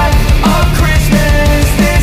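Loud background rock music with a steady drum beat.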